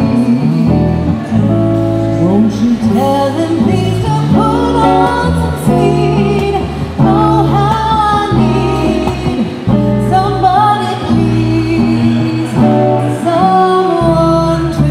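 A woman singing a jazz song into a microphone, accompanied by a Gitane DG330 gypsy jazz acoustic guitar strumming chords.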